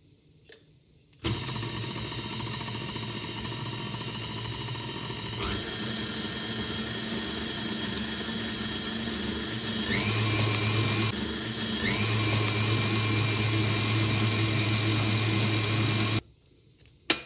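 KitchenAid Artisan stand mixer whipping egg whites and powdered sugar into a meringue with its wire whisk. The motor starts about a second in, steps up in speed twice, drops back briefly and picks up again, then stops near the end.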